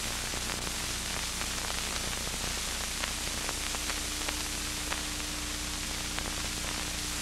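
Steady hiss with scattered faint crackles and a low hum: the background noise of an old film's soundtrack.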